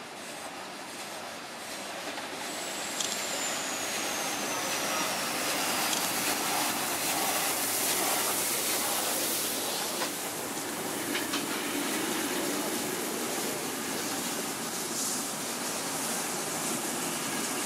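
DR class 52 steam locomotive 52 8134-0 rolling past close by with its train of passenger coaches, the running noise building to a peak as the engine passes about eight seconds in and then holding steady as the coaches roll by. A thin high squeal slides down in pitch about three seconds in, with a few sharp clicks from the wheels over the track.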